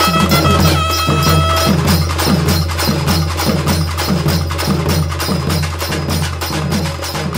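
Folk drum ensemble playing a fast, dense rhythm: barrel drum and stick-beaten side and bass drums, with a held melody note that stops about two seconds in.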